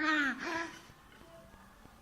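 A baby's short whining cry: two high-pitched vocal sounds in the first second, the first falling in pitch, then quiet.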